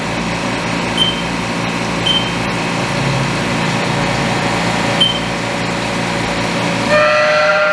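Haas OM-2 CNC mill cutting 4140 steel with a carbide end mill under flood coolant: a steady wash of spindle, cutting and coolant-spray noise. A few short high beeps sound over it from the control keypad as the override keys are pressed, and near the end a squeal of several steady tones joins in.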